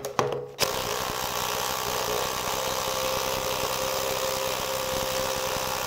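Hilti SFC 22-A cordless drill/driver running steadily under heavy load, driving a large hex-head screw into wood through a socket adapter; the driver is short of torque at this depth but keeps turning the screw in. The motor starts about half a second in and runs at an even pitch throughout.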